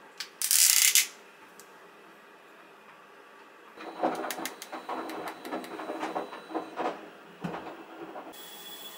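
A short loud hiss about half a second in, then a makeup brush working an eyeshadow palette: a run of small clicks and scratchy rubs, with a soft thump near the end.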